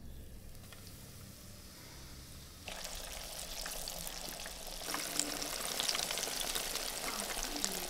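Morels dropped into a hot frying pan: a sizzle starts suddenly about three seconds in and grows louder with dense crackling a couple of seconds later as more pieces go in.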